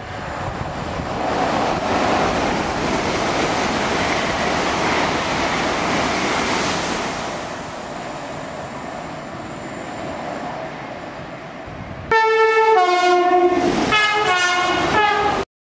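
LNER Class 800 Azuma train passing through the station: a steady rush of wheel and body noise that builds over the first seconds and eases after about seven. About twelve seconds in it cuts abruptly to a train horn sounding several blasts at different pitches, which stops suddenly.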